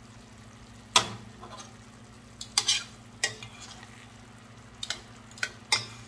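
Metal tongs clinking and scraping against a stainless steel pan as chicken legs are turned in simmering soy braising sauce, about half a dozen sharp knocks with the loudest about a second in. The sauce sizzles faintly underneath.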